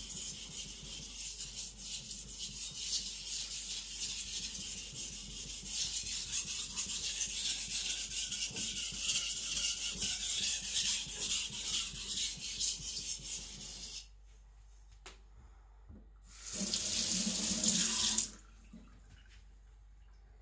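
Gyuto blade being stroked rapidly back and forth on a wet whetstone to thin it, a dense gritty hiss. It stops about 14 s in, and a shorter burst of strokes follows about two seconds later.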